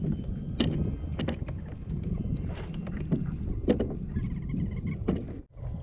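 Wind rumbling on the microphone over a kayak, with scattered knocks and clicks from gear handled on the boat, and a brief dropout near the end.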